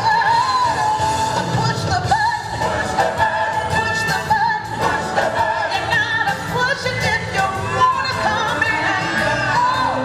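Pop song with sung vocals over a steady beat, playing loud and unbroken: the dance routine's music track.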